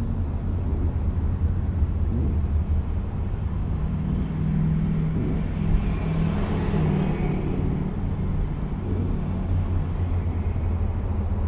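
Steady low rumble of a running vehicle engine, with another vehicle passing by, its sound building and fading away around the middle.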